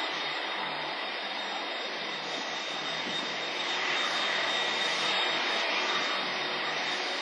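IAE V2500 turbofan engines of an Airbus A320-232 running at low thrust as it taxis past, a steady rushing hiss with a thin high whine over it.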